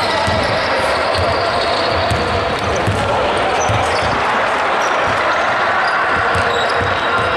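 Basketball game sounds on a wooden court in a large echoing hall: sneakers squeaking and a ball bouncing as the players move up the floor, over a steady background noise.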